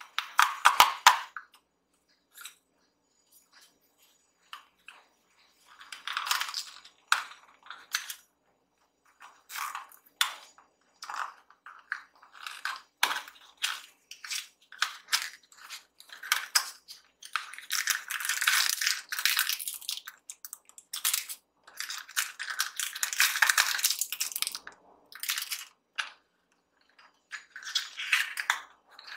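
Small paperboard box being opened by hand: the perforated tab pressed in and torn and the flaps folded back, giving crinkling, scraping and sharp clicks, with longer stretches of continuous crackling about two-thirds of the way through.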